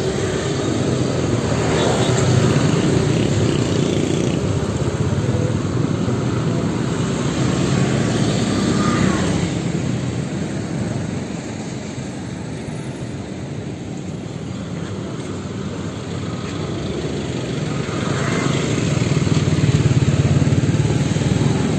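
Street traffic on a narrow road: motorcycles, a three-wheeled bajaj and a small pickup drive past close by. Their engine and tyre noise swells and fades, loudest a couple of seconds in and again near the end.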